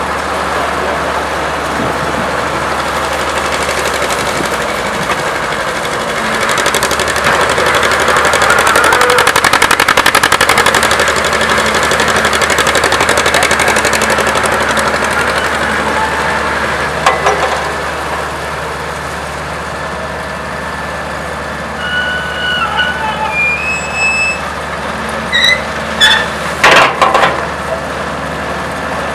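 Vintage Weserhütte cable-operated face shovel at work: its engine runs steadily and grows louder for several seconds as the bucket is hoisted. Near the end come a few short squeals, then a cluster of sharp clanks as the bucket is swung over the truck and dumps its load.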